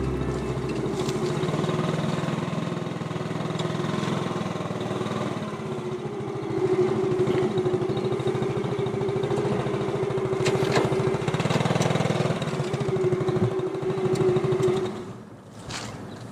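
Small motorbike engine running steadily under way, its note strengthening about six seconds in and dropping away near the end.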